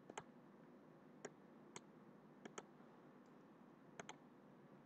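Faint computer mouse clicks, about seven spread across a near-silent background, two of them quick double-clicks.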